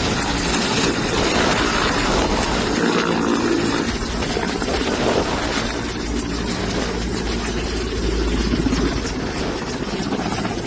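Steady engine drone with a dense rushing noise over it, holding level without pauses.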